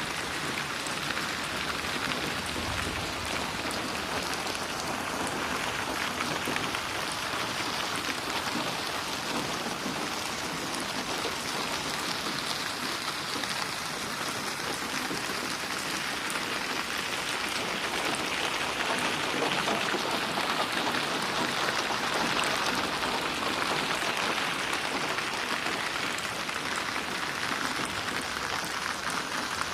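Steady rain falling, a dense hiss of drops splashing on a hard surface, with no thunder. It swells slightly louder about two-thirds of the way through.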